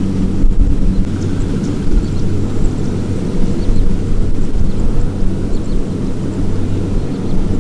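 Diesel engine of farm machinery at a rice harvest running steadily under load, a loud low drone that holds the same pitch throughout.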